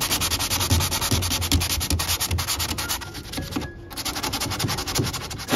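Sandpaper rubbed by hand against old oak in quick back-and-forth rasping strokes, with a brief pause a little past halfway.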